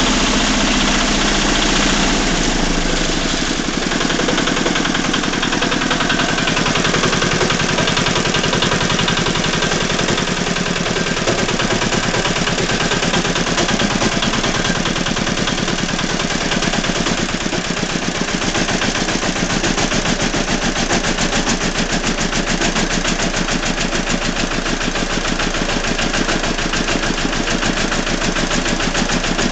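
Walk-behind tractor engine running steadily at idle, with a knock in the engine.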